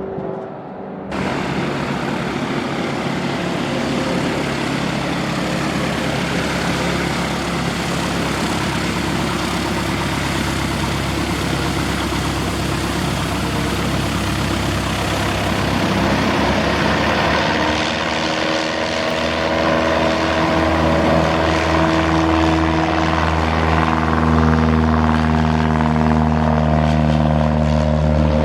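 Propeller airplane running: a steady engine-and-propeller drone over a wash of noise. It starts abruptly about a second in, and from about two-thirds of the way through it grows louder, with a stronger humming tone.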